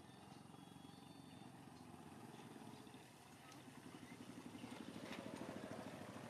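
A distant engine running, a low pulsing drone that grows louder in the second half.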